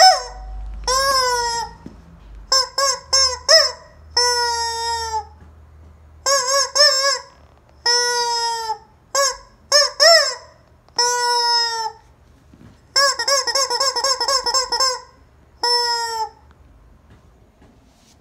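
Squeaky rubber chicken toy squeezed again and again, squawking in a high, nasal honk. The calls come irregularly: some short and in quick runs of three or four, some drawn out for about a second, and a fast string of squeaks about two-thirds of the way through.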